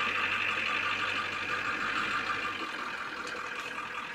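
Ford F-250's Power Stroke turbodiesel V8 running at low engine speed, a steady diesel hum that drops a little about two and a half seconds in.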